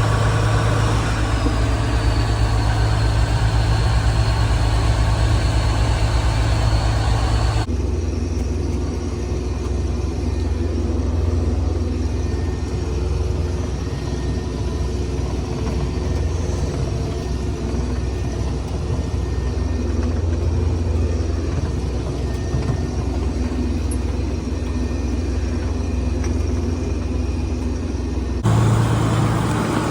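Combine harvester engine running steadily, a low drone with a high whine over it for the first several seconds. The sound changes abruptly twice, about a third of the way in and near the end.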